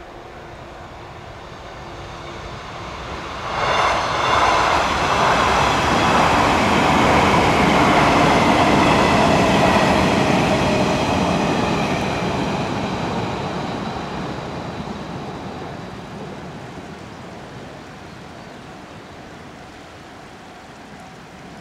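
Multi-car electric passenger train passing at speed: the rumble swells, jumps suddenly about three and a half seconds in, carries a high whine over it while the cars go by, then fades away steadily as the train recedes.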